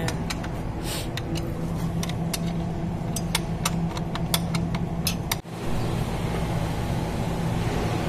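Electric pump motor, its bearings just replaced, running on test with a steady hum. Sharp metallic clicks and taps sound over it during the first five seconds, and the sound drops out briefly about five and a half seconds in.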